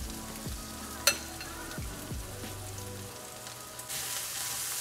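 Chopped calabresa sausage, onion and garlic sizzling in oil in a stainless steel skillet as fresh chives, cilantro and scallions are tipped in, with one sharp clink about a second in. Near the end the sizzle grows louder as the mixture is stirred.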